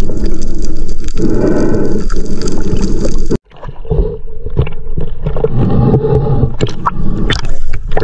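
Loud, muffled underwater water noise that cuts off abruptly a few seconds in, followed by water sloshing and splashing at the surface with a few short knocks.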